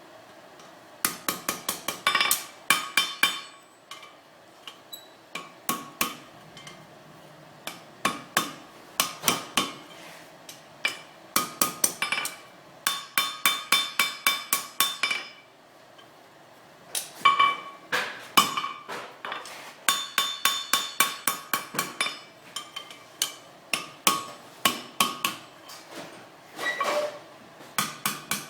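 Blacksmith's hand hammer striking hot steel on an anvil in quick runs of blows, each blow ringing, with short pauses between the runs.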